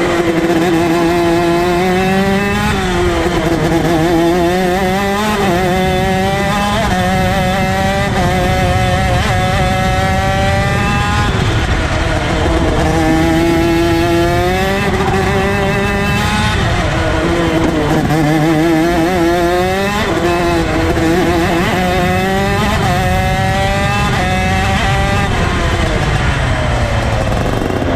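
125cc Rok Shifter kart's two-stroke engine at racing speed, its pitch climbing and dropping over and over as it revs up through the gears and falls off for the corners.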